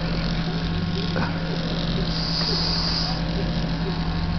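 Hand-held electric massager running with a steady low hum as it is worked over a cat's back.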